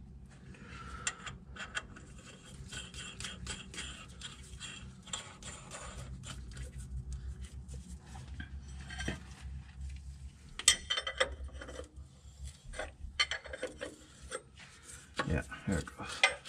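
Metal clinks, scrapes and rubbing as a steel rear main seal installer is handled and fitted over the crankshaft, with a sharp click a little after the middle and a run of clicks toward the end. The seal is being worked onto the crank to get it going on straight after sitting cockeyed.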